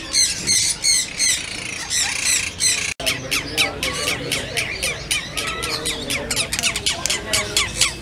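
Blue monk parakeets (Quaker parrots) squawking in a rapid run of short, harsh calls, several a second. The calls break off briefly about three seconds in.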